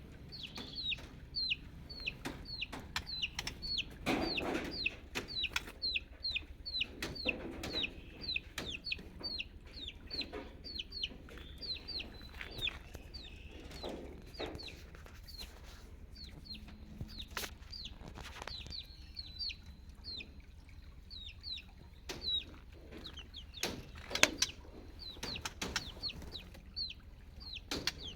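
Baby chicks peeping: a steady run of short, high cheeps that fall in pitch, about two a second, with a few sharp clicks in between.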